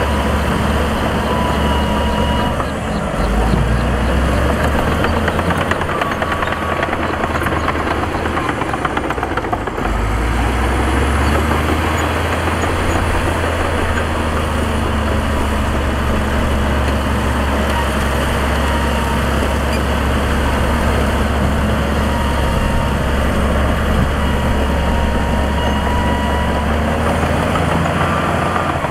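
Heavy diesel engines of construction machinery (dump trucks and a bulldozer) running in a steady low rumble, the engine note shifting about three seconds in and again about ten seconds in.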